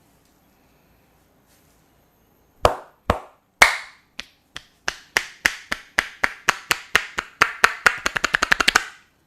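Hand strikes of a percussive head massage, sharp clapping hits. They begin a few apart, about two a second, speed up steadily to a fast run near the end, then stop.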